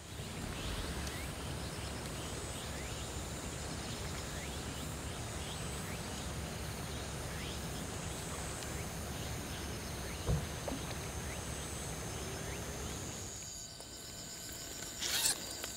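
Outdoor pond-side ambience: a steady low rumble with many short chirps and a high insect drone, and a soft thump about ten seconds in. About thirteen seconds in it gives way to a quieter night ambience with a steady high insect drone and a brief rustle near the end.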